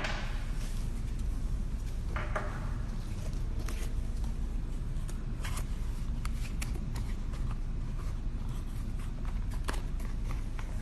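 Small parts and packaging being handled: scattered light clicks and faint scraping over a steady low background rumble.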